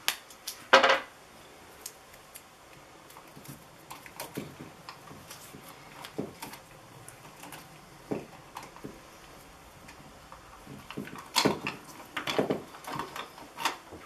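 Hands handling electrical wires, plastic wire nuts and a dimmer switch: scattered light clicks and rustles, louder for a couple of seconds near the end as the wires are folded back and the switch is brought to the box.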